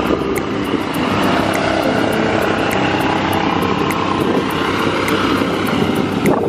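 Quad bike (ATV) engines running steadily as several ATVs drive past one after another.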